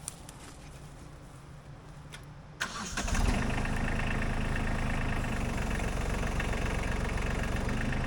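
Kubota B-series compact tractor's diesel engine cranking briefly and starting about three seconds in, then idling steadily.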